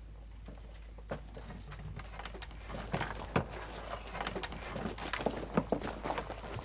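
Clicks and knocks of paintball gear being handled on a wooden table: plastic masks, markers and equipment picked up and set down, growing busier after about a second.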